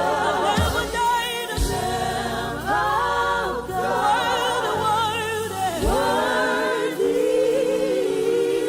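Gospel worship music: a choir singing long, held notes with vibrato over a keyboard and bass accompaniment, with a few low drum hits.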